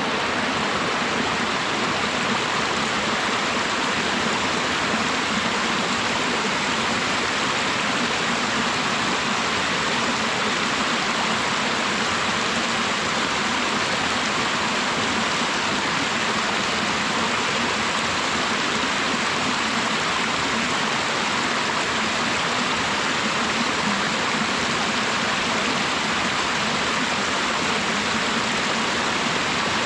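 Rushing water of a mountain stream and waterfall, a steady, unbroken wash of sound that does not change.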